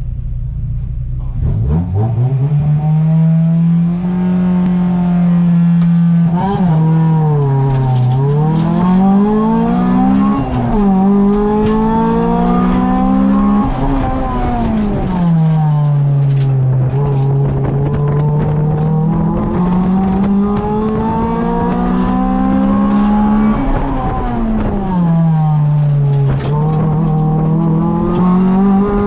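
Honda Civic EG's B18C four-cylinder engine heard from inside the cabin: revved up and held at steady revs on the start line, dipping as the car launches about seven seconds in. It then climbs through the gears in repeated rising sweeps, falling back on lifts and downshifts.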